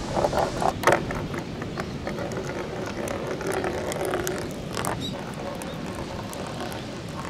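A small ball rolling along a plastic rain-gutter track, a steady rumble with scattered small clicks and ticks. There are a few sharper knocks in the first second, over a steady hiss of wind.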